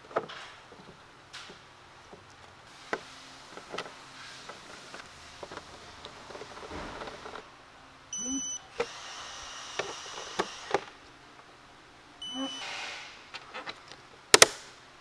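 Plastic air filter housing cover knocked and clicked into place. A digital torque wrench on the cover bolts gives two short electronic beeps, about eight seconds in and again four seconds later, signalling it has reached the set torque. Near the end comes one loud sharp click.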